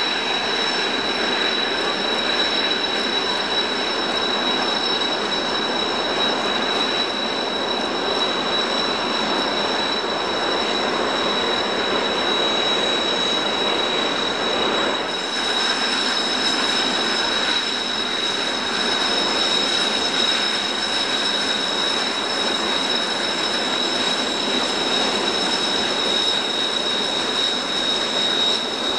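Kawasaki T-4 jet trainer's twin turbofan engines running at taxi power as the jet rolls past close by: a steady high whine over a broad rush of engine noise.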